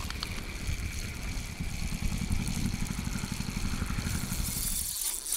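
Wind buffeting the microphone: a low, fluttering rumble that cuts off abruptly about five seconds in.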